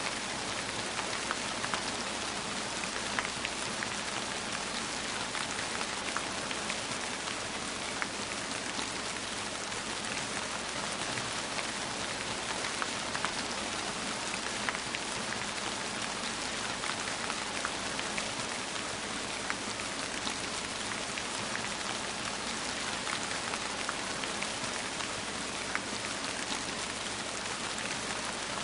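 Steady rain falling on a surface: an even hiss with scattered individual drops ticking.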